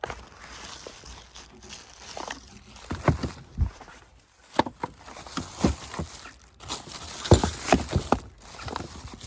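Handling noise: irregular knocks, clicks and rustles as a hand-held tool is picked up and turned over, with a cluster of sharper knocks in the last couple of seconds.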